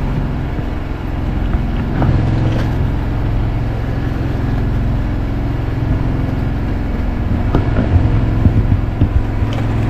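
An engine running steadily close by: a low, even drone with a fast regular pulse. Several sharp knocks come about eight seconds in, as a man climbs and steps along the bamboo outrigger poles.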